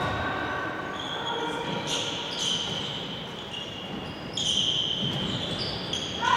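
Handball court play: athletic shoes squeaking sharply several times on the wooden sports-hall floor, and a handball being bounced.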